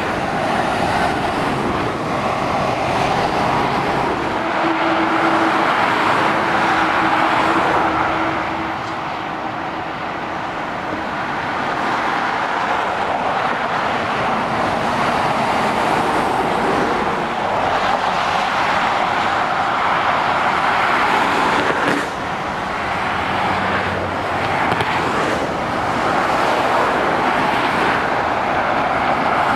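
Motorway traffic passing below: heavy lorries and cars driving by, a steady tyre-and-engine noise that swells and eases as each vehicle approaches and goes past.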